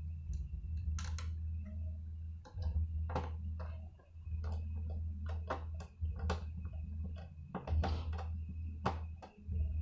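Irregular small clicks and taps of laptop parts and plastic casing being handled, over a steady low hum.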